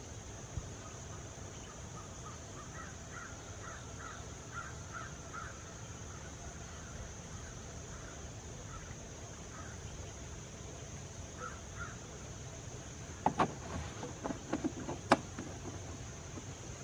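Motor oil gurgling faintly as it pours from a plastic jug through a funnel, in a run of short glugs. Near the end come a few sharp clicks and knocks as the jug is handled and taken away.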